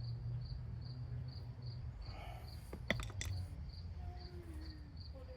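A cricket chirps steadily, about two chirps a second, over a low background rumble. A couple of sharp metallic clicks come about three seconds in, from handling parts or tools.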